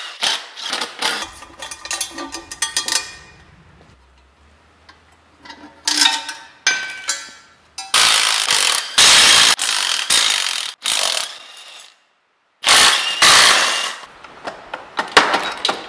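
Cordless Ryobi impact driver run in several bursts of a second or two, undoing bolts on an engine.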